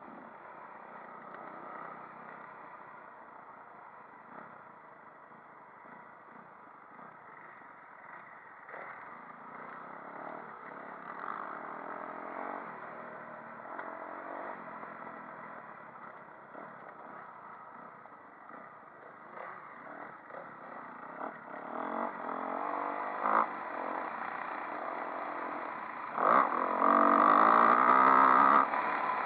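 Motocross bike engine running as the bike is ridden over a dirt track, its pitch rising and falling with the throttle. It gets louder with hard revving in the last few seconds.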